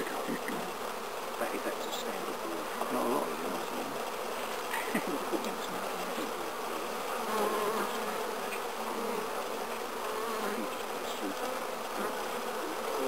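Honeybees buzzing over an open hive: a steady hum of the colony with individual bees flying past close by, their pitch wandering up and down. A few light clicks of a hive tool working the wooden frames.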